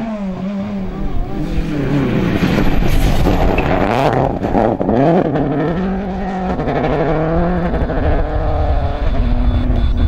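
Rally car engine at full throttle on a gravel stage, its revs swooping up and down several times through quick gear changes and lifts, then holding steady before dropping near the end as the car pulls away.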